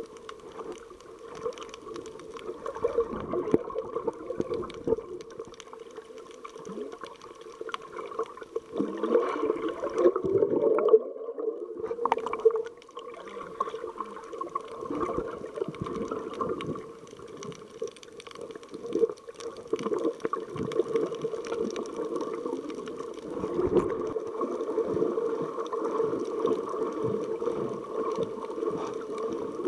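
Water sloshing and gurgling around a ContourRoam2 action camera held underwater, muffled, with irregular swishes as it moves; loudest around ten seconds in, with a brief drop just after.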